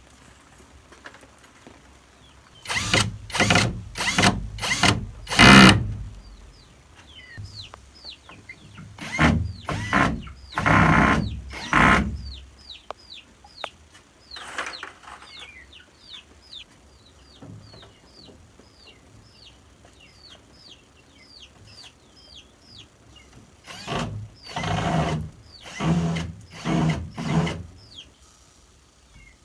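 Three bursts of short, rasping strokes from a hand tool working material, several strokes to each burst. Between the first bursts and the last, a bird gives a long run of short, high, falling peeps, about two a second.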